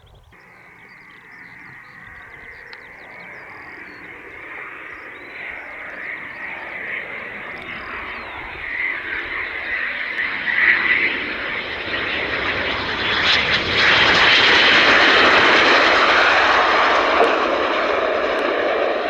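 Jet aircraft approaching and passing: its roar builds steadily for about fourteen seconds to a peak, then eases a little, with a thin high whine above it.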